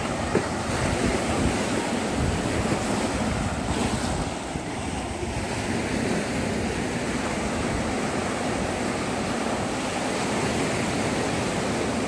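Sea waves breaking and washing in among the boulders of a rock sea wall, a steady rushing surf, with wind rumbling on the microphone.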